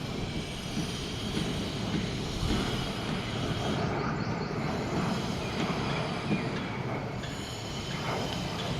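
Jet aircraft engine noise, a steady rushing roar of the display jets flying overhead.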